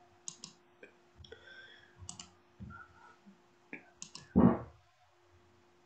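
Scattered short clicks and small knocks, with one louder, duller thump about four and a half seconds in.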